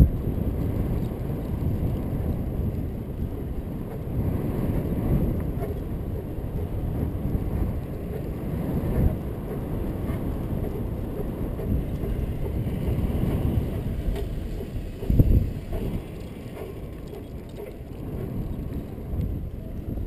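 Wind rumbling on a GoPro's microphone, mixed with bicycle tyres rolling on asphalt, as a cruiser bicycle is ridden along a street. The rumble rises and falls, with a brief louder gust about fifteen seconds in.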